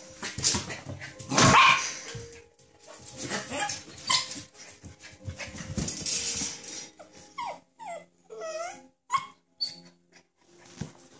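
Samoyed puppy barking and growling in play in short bursts, with a run of short high-pitched yips about two-thirds of the way through.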